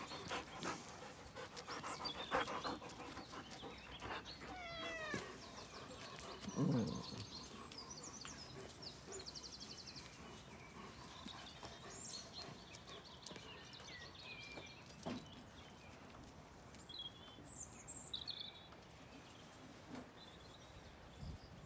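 Domestic tabby cat meowing a few times, the loudest a falling meow about seven seconds in. Faint high chirps come later.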